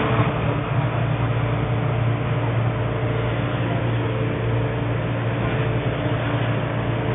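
Steady low hum and rumble inside an MTR M-train car, its doors just shut, as the train gets ready to pull away.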